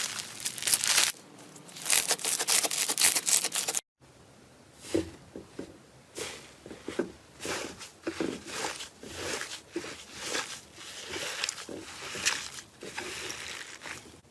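Slime being handled by hand: for the first four seconds, a dense crackling of many fine clicks as the slime is pressed. Then, after a brief cut, a run of separate squelches and small pops as slime is squeezed and folded, about one or two a second.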